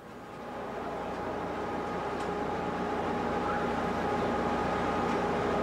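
Electric streetcar running: a steady rumble with a few faint steady whining tones, swelling in over the first couple of seconds.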